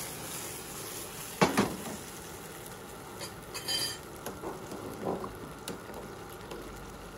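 Halved cherry tomatoes sizzling steadily in a steel frying pan on a gas hob. The pan clanks onto the burner grate about a second and a half in, followed by a few lighter metal clinks.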